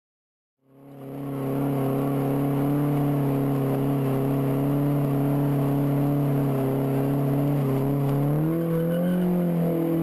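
Car engine held at steady high revs while the wheels spin and smoke on loose dirt. It starts just under a second in, and the revs step up a little about eight and a half seconds in.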